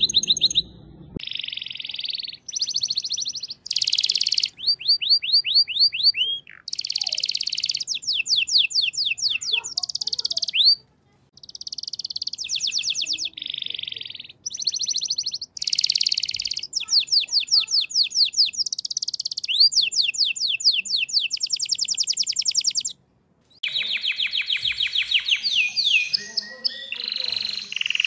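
Male domestic canaries singing in turn: long rolls and trills of fast repeated notes, switching to a new phrase every second or two, with a couple of brief breaks.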